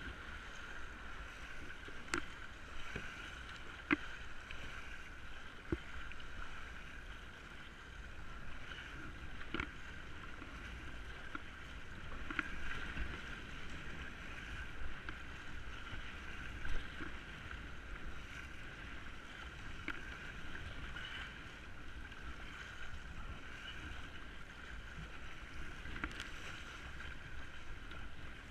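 Kayak out on the water: steady water and wind noise, with occasional sharp knocks and splashes at irregular intervals.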